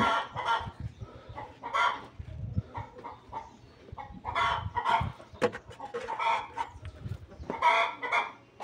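Chickens clucking, a short call every second or so. It opens with a single sharp knock as a hand presses the lid onto a metal paint can.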